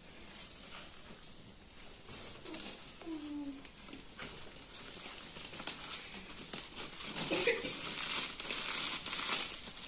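Woven plastic sack crinkling and rustling as it is handled, growing louder in the second half.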